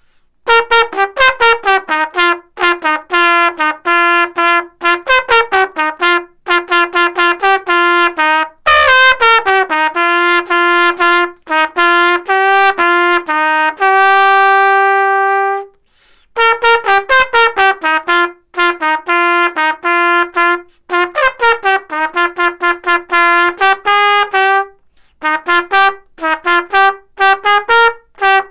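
A 1970s Yamaha YCR-332 cornet, dented and bent with a seized tuning slide, playing a solo melody in short separate notes. A long held note comes about halfway through, and there are brief pauses between phrases.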